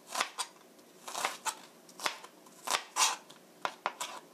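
Chef's knife mincing onion on a plastic cutting board: a string of irregular chopping strikes, each a sharp knock with a crisp crunch of onion.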